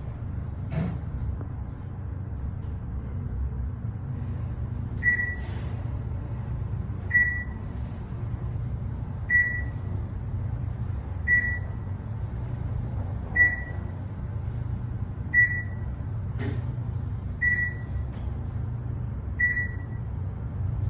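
Otis 'microwave beep' floor-passing chime of an Otis Series 4 traction elevator going down: a short, high, single beep about every two seconds, eight in all, starting about five seconds in, one for each floor passed. Under it runs the steady low hum of the moving car.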